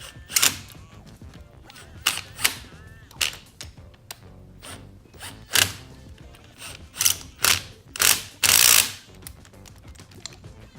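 A run of irregular sharp clanks and clicks of hand tools and metal engine parts being handled, with a longer scraping rattle near the end, during work on a Subaru EJ25 engine.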